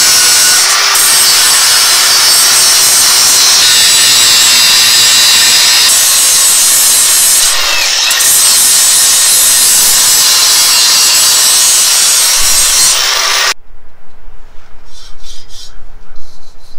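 Angle grinder with a cutoff wheel cutting through the steel tubing of a minibike frame: a loud, steady grinding screech that stops suddenly about thirteen seconds in, followed by quieter handling and knocking sounds.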